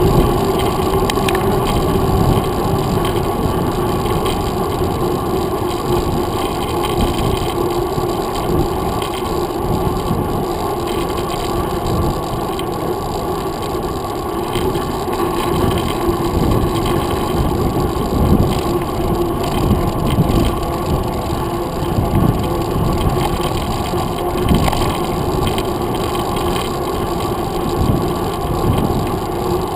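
Mountain bike rolling along a paved trail, heard through a handlebar-mounted GoPro Hero 2: a steady, muffled rumble of wind and road vibration with a low hum, and a few knocks from bumps in the second half.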